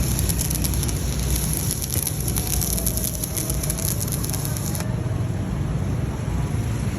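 Stick-welding arc from a 3.2 mm electrode on a Kimmie inverter welder, crackling and sizzling, then cutting off abruptly about five seconds in as the arc breaks. A steady low drone runs underneath.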